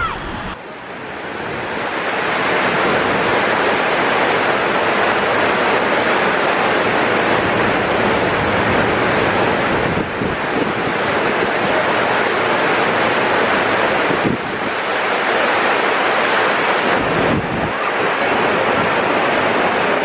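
Steady rush of water pouring down waterslides and their run-out channels. It swells up in the first couple of seconds and then holds even.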